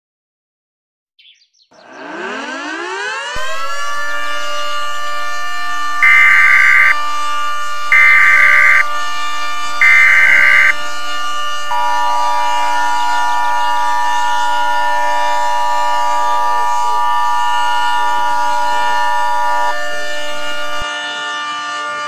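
A civil-defense-style siren winds up over about two seconds and then holds a steady pitch. Over it come three short screeching bursts of EAS SAME header data, about two seconds apart, followed by the EAS two-tone attention signal held for about eight seconds.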